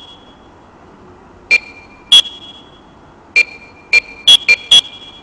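Button-press beeps from a talking UFO alarm clock: seven short electronic beeps at two pitches, irregularly spaced, the last few in quick succession, as its settings are stepped through.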